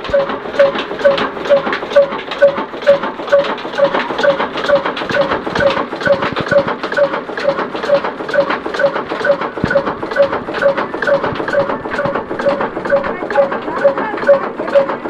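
Old Ruston-type horizontal single-cylinder diesel engine running steadily with a slow, even beat of about two and a half knocks a second, each with a ringing clank, while it drives a flour-mill chakki.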